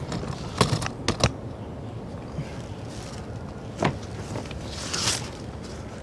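A few light knocks as a small wooden picnic-table squirrel feeder is shifted about on wooden deck boards: three close together in the first second and a half and one near four seconds in, then a short rustle around five seconds.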